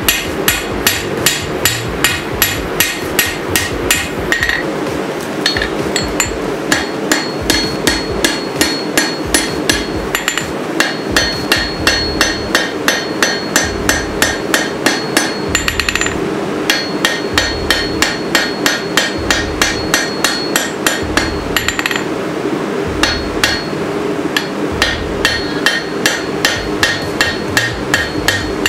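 Hammer blows forging a 5160 steel sword blade on an anvil, struck about three times a second with a metallic ring, in runs broken by three or four brief pauses.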